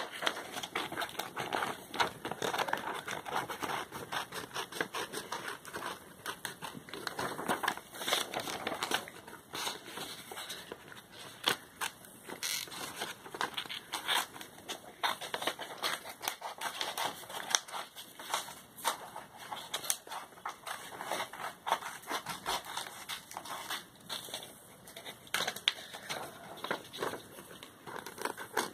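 Scissors cutting paper: a long, irregular run of snips and crackles, with the paper rustling as it is handled.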